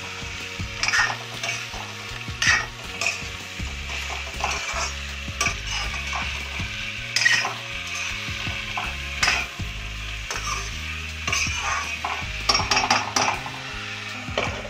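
Chopped spiny gourd (kakoda) sizzling as it fries with spices in a kadhai. A metal spatula stirs it, scraping and clinking against the pan every second or two.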